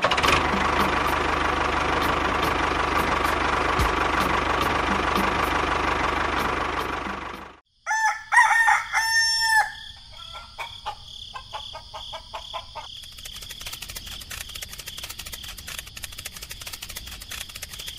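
A steady noisy whirr cuts off abruptly about eight seconds in; a rooster then crows once, followed by faint ambience with light ticking.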